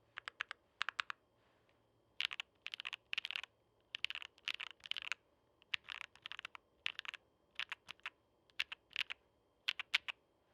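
Mechanical keyboard being typed on: a gasket-mounted MAJA V2 with a polycarbonate plate, lubed Silver Blizzard switches and foam-filled case. Keystrokes come in uneven clusters separated by short pauses, with the fastest run of strokes in the middle.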